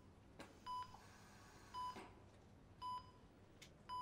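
Bedside patient monitor beeping in a hospital room, a short high beep about once a second.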